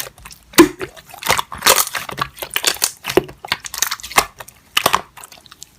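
Slime being squeezed and pressed by hand: irregular crackling and popping, which dies away just before the end.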